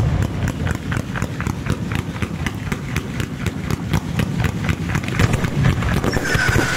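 Bolognese-style ground fireworks battery firing a fast, even series of bangs, about five a second. Near the end a falling whistle starts over them.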